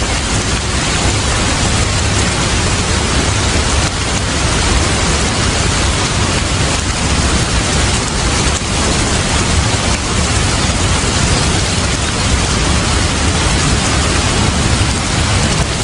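Steady heavy rain, a continuous even hiss of rainfall with no let-up.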